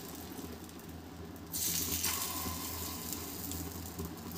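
Sooji (semolina) appe batter sizzling in the hot oiled cavities of an appe pan. The sizzle gets louder about a second and a half in as more batter is spooned into the pan.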